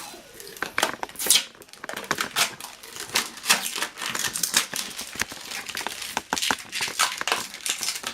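Protective plastic film being peeled and handled on a computer case front, crinkling and crackling in quick irregular bursts.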